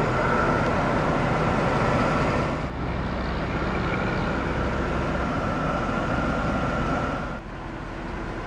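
2008 Mercedes-Benz E63 AMG's 6.3-litre V8 idling steadily, with a thin steady high whine over the low engine note; the sound dips briefly twice.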